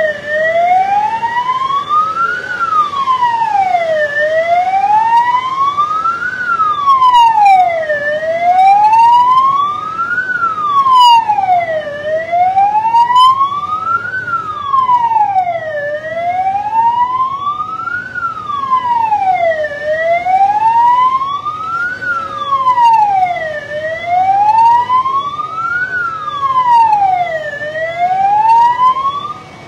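Vehicle siren wailing, its pitch sweeping slowly up and down about once every four seconds. It cuts off just before the end.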